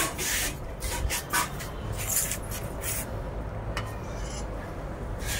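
Short, repeated scraping and scuffing on a concrete floor as a civet is pinned and moved with a metal rescue hook and tongs.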